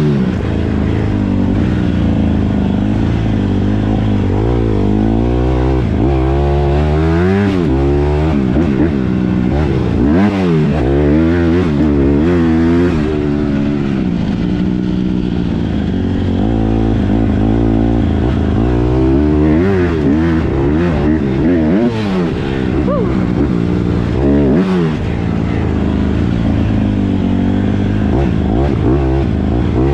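Honda CRF150R's four-stroke single-cylinder engine under hard riding: the engine note climbs and drops over and over as the rider accelerates and shifts gears.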